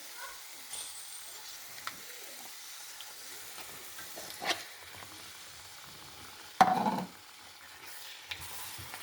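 Mutton pieces frying in an onion-tomato paste in a pan, a steady sizzle with a spoon stirring and scraping and small clicks. A louder clatter comes about six and a half seconds in.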